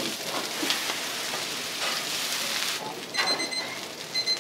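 Gyoza frying on a flat steel griddle, a dense sizzle that drops away about three seconds in. Then a metal spatula scrapes on the griddle, and a high electronic beeping starts.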